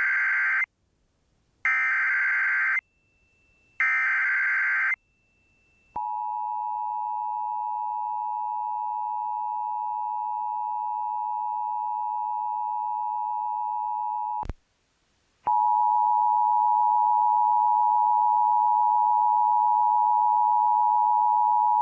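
Emergency Alert System header: three screeching digital SAME data bursts about a second apart, then the steady two-tone EAS attention signal for about eight seconds. After a short gap a second long, steady alert tone starts, with a faint radio hiss under it.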